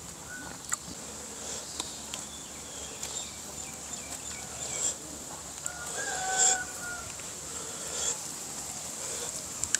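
Rural yard ambience with a steady high insect drone and scattered small clicks of eating, and a rooster crowing once about six seconds in.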